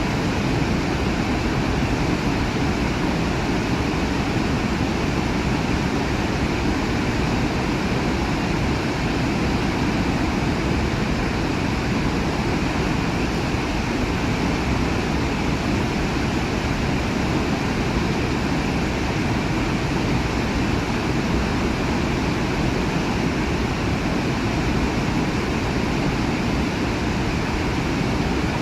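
Large waterfall, a steady dense rush of falling water with no breaks or changes.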